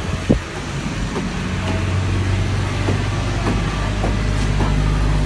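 Steady low rumble of a road vehicle in motion, with a couple of short knocks near the start.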